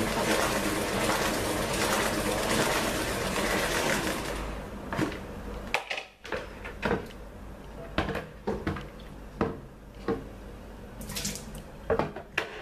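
Water pouring out of a plastic salad spinner as it is tipped to drain, a steady rush that stops about four and a half seconds in. After that come scattered short plastic clicks and knocks and rustling as the lid comes off and the basket of wet parsley and cilantro is handled.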